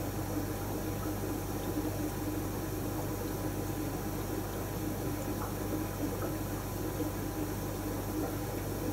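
Aquarium equipment running: a steady hum with the trickle of moving water.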